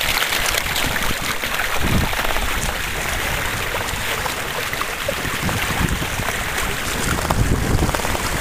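Wind buffeting the microphone in uneven low gusts, over a steady rush of water along the hull of a canoe under sail.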